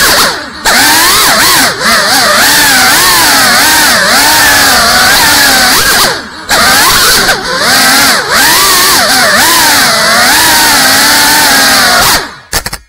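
Brushless motors and ducted propellers of a GEPRC Cinelog 35 cinewhoop FPV drone whining close up, the pitch swinging up and down without pause as the throttle changes. The sound drops away briefly twice when the throttle is cut, and stops near the end as the drone settles on the floor.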